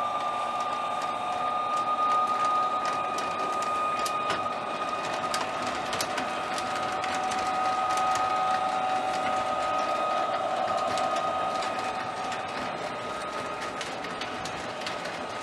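Lionel O27 model trains running on tubular three-rail track: a steady whine from the locomotives' electric motors and gearing, slowly shifting in pitch, over irregular clicking of wheels crossing rail joints and switches.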